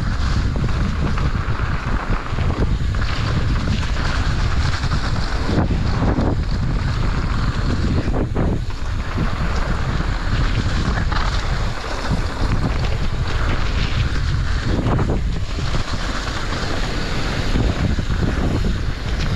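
Wind rushing over an action camera's microphone during a fast mountain-bike descent, mixed with the tyres rolling over the dirt trail.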